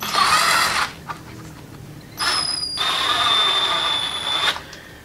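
Cordless electric drill used as a homemade kayak motor, whirring as its trigger is squeezed to spin the drive shaft unloaded, out of the water. A short burst comes first, then a run of about two seconds with a whine that steps down in pitch partway through.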